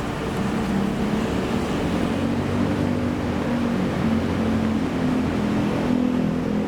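City street traffic, with a nearby motor vehicle's engine running in a steady low hum.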